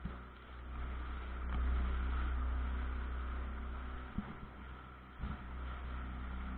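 Pontoon boat's outboard motor running steadily at cruising speed, with two brief knocks about four and five seconds in.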